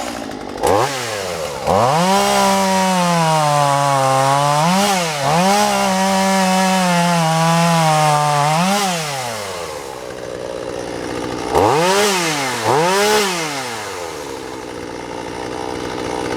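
Poulan Pro 46cc two-stroke chainsaw engine being revved off the cut: two quick throttle blips, then held high for about seven seconds with two brief dips, dropping back to idle, two more blips, and settling to idle. It picks up and returns to idle cleanly, which the owner takes as a sign that it idles fine and the carburettor runs smoothly.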